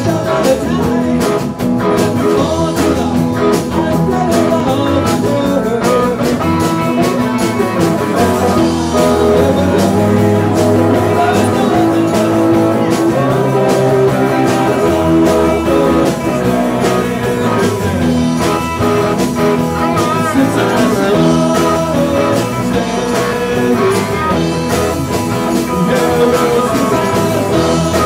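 Live rock-blues band playing a song: electric guitars, hand drums (bongos and congas) and a man singing, loud and steady.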